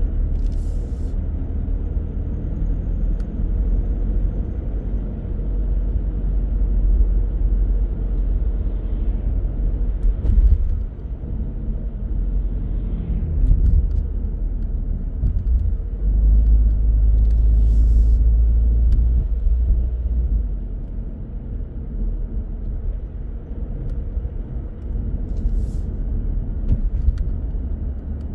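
A car driving, heard as a steady low road-and-engine rumble that swells for a few seconds about two-thirds of the way through. A few faint clicks come through now and then.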